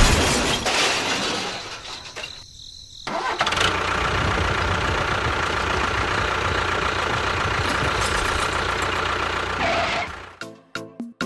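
An engine running. It dies away about two seconds in, starts up again about three seconds in and runs steadily until it cuts off near the end.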